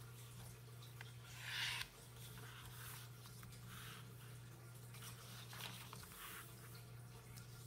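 Sheet of thin printer paper rustling and being creased by hands as it is folded into a triangle and smoothed flat, in several short bursts, the loudest about a second and a half in, over a low steady hum.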